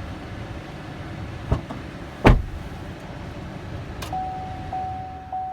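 2018 GMC Sierra pickup door latch clicking, then the door shutting with a single loud thump. A little later the truck's warning chime starts dinging, a steady tone repeated about every half second.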